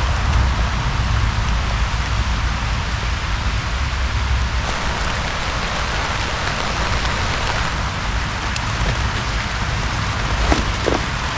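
Steady rain falling on a nylon tarp, with a few light ticks near the end.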